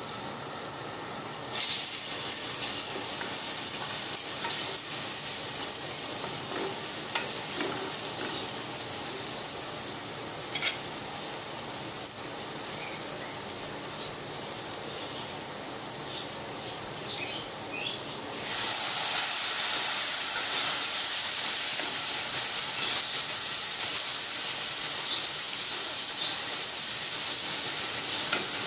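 Spice paste sizzling in hot oil in an aluminium pan while it is stirred with a spatula. It is a steady frying hiss that grows clearly louder about two-thirds of the way through.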